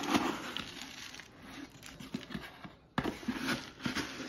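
Dry rolled oats rustling and pattering as a hand works a measuring cup inside a cardboard oats canister. The rustling dips almost to silence just before three seconds in, then resumes with a sharp click.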